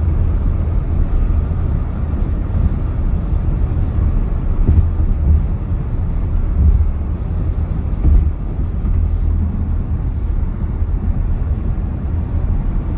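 Wind and road noise inside a 2022 Tesla Model Y's cabin at driving speed, picked up close to a side window: a steady, low rumbling hiss. No motor whine is heard.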